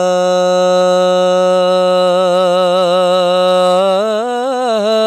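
Unaccompanied male voices chanting soaz, a Shia elegy sung with no instruments, holding one long sustained note that wavers briefly near the end.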